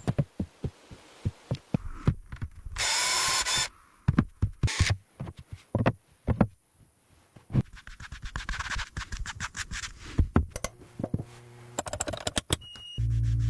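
Building work: a run of sharp knocks and taps, with a short power-tool burst about three seconds in and a steady machine hum starting near the end.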